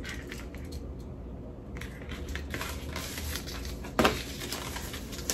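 Paper rustling and crinkling as a white envelope is handled and the receipt inside it is drawn out, with a sharper rustle about four seconds in, over a steady low hum.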